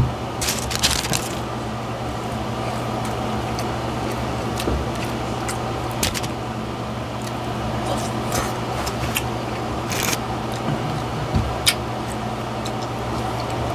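Close-miked eating sounds of a burger: scattered crackles and clicks from chewing and handling the food, a bite near the end, over a steady low hum.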